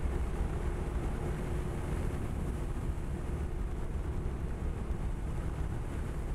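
Honda PCX160 scooter's single-cylinder engine running steadily under way, with wind noise on the microphone.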